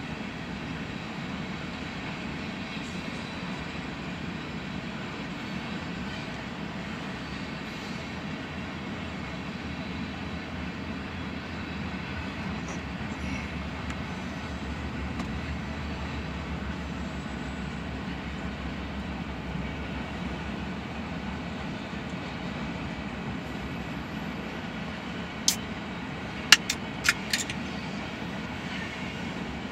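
Freight cars of a mixed manifest train rolling past: a steady low rolling noise of steel wheels on rail. Near the end comes a quick cluster of four or five sharp clicks.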